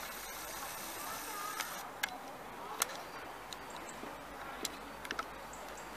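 Sharp metallic clicks of climbing-harness carabiners on a ropes-course safety cable, about half a dozen scattered through, some in quick pairs, over a steady outdoor hiss.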